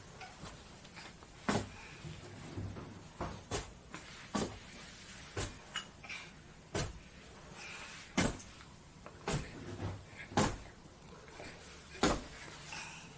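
A series of sharp knocks or taps, about ten of them, coming unevenly at roughly one a second.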